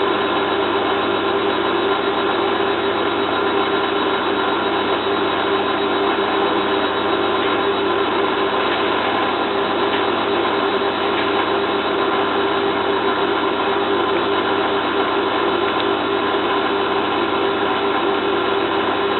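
Zanussi FLA1002W washing machine spinning a duvet load, a steady motor and drum hum with a whine that holds even throughout, the spin running without a balance crash or sudslock.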